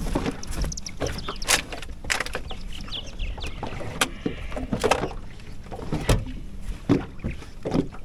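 Knocks, clicks and rustles of someone moving about on a boat's deck and handling a fish and tackle, over a steady low rumble of water and wind against the hull.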